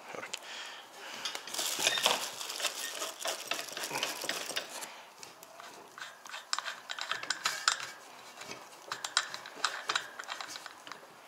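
Small irregular metal clicks and clinks as a nut and washer are handled and threaded onto the axle of an e-bike rear hub motor, with a stretch of rustling handling noise in the first few seconds.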